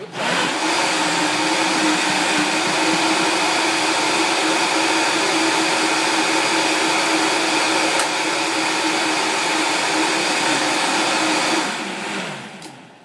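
High-powered countertop blender running at full speed, giving a thick fruit smoothie a final blend: a loud, steady whir with a hum under it. It is switched off near the end and winds down.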